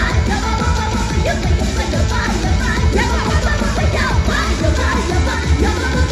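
Fighter's entrance music with singing and heavy bass, played loud through an arena's sound system.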